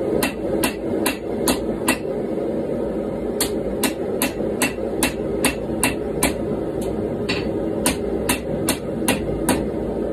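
Hand hammer striking a red-hot GoMai billet of wrought iron, nickel and 1095 steel on an anvil in quick blows, about three to four a second, with a short break about two seconds in. A steady drone from the lit gas forge runs underneath.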